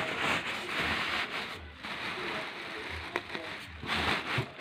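Thin plastic liner rustling and crinkling as hands press and smooth it down inside a polystyrene box, with a few light knocks.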